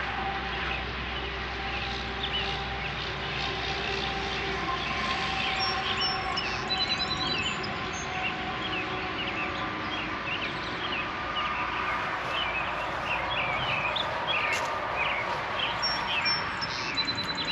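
Outdoor ambience: many small birds chirping and twittering continuously, with a steady background rumble like distant traffic.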